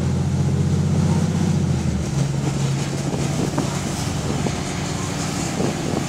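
A bus's diesel engine and leaking exhaust heard from inside the saloon while it drives, a deep, rapidly pulsing note under load. About two seconds in the deepest part of the note drops away, leaving a steadier engine hum with road noise.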